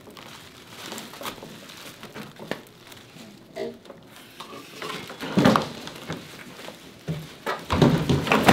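Handling noise from a heavy, plastic-wrapped freeze dryer being hauled out of its wooden shipping crate: the wrap crinkles and the wood knocks and scrapes. The loudest knocks come about five seconds in and near the end, as the empty crate tips over.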